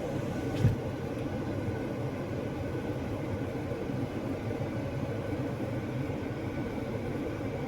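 A 2022 Jeep Grand Cherokee idling with its air conditioning running: a steady low rumble, with a single knock a little under a second in.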